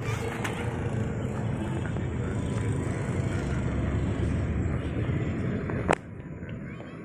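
Steady low outdoor rumble of wind on the microphone and street traffic while jogging with a handheld camera. A sharp knock comes near the end, and after it the rumble drops to a quieter level.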